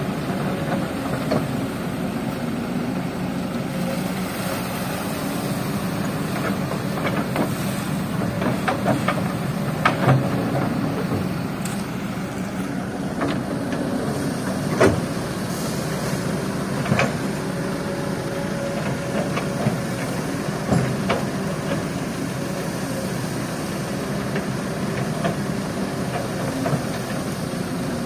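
Kobelco hydraulic excavator's diesel engine running steadily as it digs and swings its bucket, with a handful of sharp clanks and knocks, the loudest about ten and fifteen seconds in.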